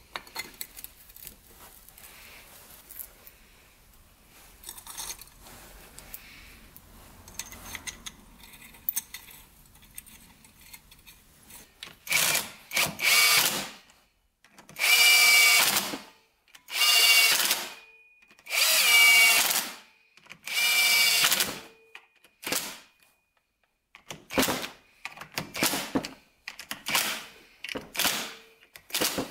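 Cordless power driver running in the clutch pressure-plate bolts on a Yamaha YFZ450 engine, in about five whirring runs of a second or two each, then several short bursts near the end. Before the driver starts there are only faint clicks of parts being handled.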